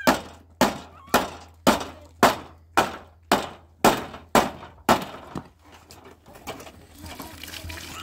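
A run of hard, evenly spaced blows, about two a second, each ringing briefly, stopping about five seconds in and followed by a few lighter knocks.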